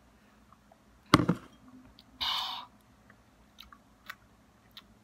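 A drinking glass set down on a desk with one sharp, loud knock. About a second later comes a short breathy exhale after the drink, then a few faint small clicks.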